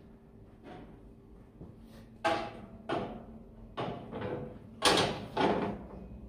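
A steel skewer-rest frame being set down and shifted on the grill's metal grid bars: a series of about five metal clanks and rattles a second or less apart.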